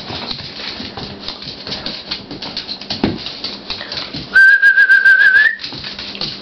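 Puppies play-wrestling on a tile floor, a busy scuffle with small knocks. Partway through, a loud, high whistling tone lasts about a second, wavers slightly and turns up at the end.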